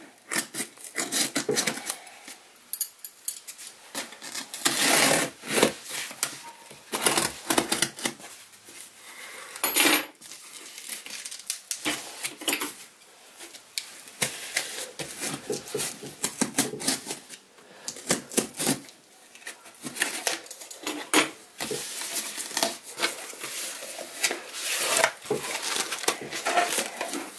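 Scissors blade dragged along the taped seams of a cardboard box, slicing through the packing tape in a long series of short scrapes and clicks with pauses between, then the cardboard flaps pulled open near the end.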